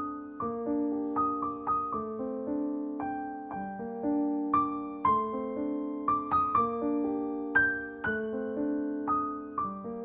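Background piano music: a gentle, unhurried melody of struck notes, each ringing and fading, over repeated low notes.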